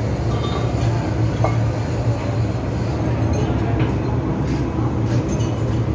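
Ship's engine-room machinery running: a steady, loud drone with a constant low hum and a few faint metallic ticks.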